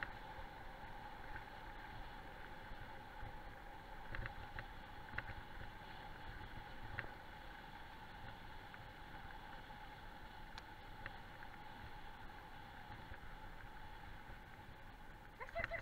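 Steady rolling rumble and hum of a wheeled dryland rig being pulled at speed over a gravel road by a team of sled dogs, with a few sharp clicks. Right at the end the dogs start yelping.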